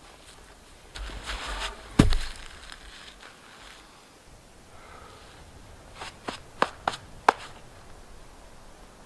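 Boots crunching through deep snow, then a single heavy thud about two seconds in, the loudest sound. Near the end, a quick run of about five sharp knocks.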